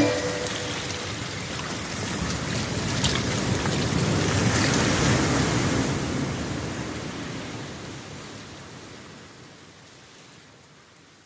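Sea waves washing in: an even rush of surf that swells for about five seconds, then fades slowly away.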